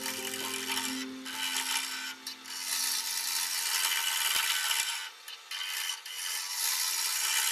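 A gouge cutting a wooden blank as it spins on a lathe: a steady, hissing scrape of the tool on the wood, broken by a few short pauses where the tool comes off the cut.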